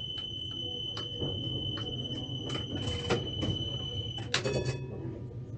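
Tatra T3 tram's door warning signal: a steady high beep with a few clicks alongside it. It cuts off about four seconds in with a short clatter, over a low steady hum from the tram.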